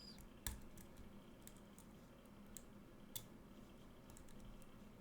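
Faint light clicks of a hook pick working the pins of a pin-tumbler lock held under tension, with two sharper clicks about half a second in and about three seconds in.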